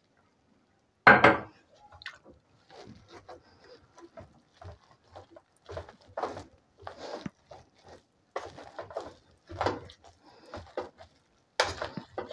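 Wire potato masher working boiled potatoes and milk in an aluminium pot: irregular squelching strokes with knocks of the masher against the pot. The loudest knock comes about a second in.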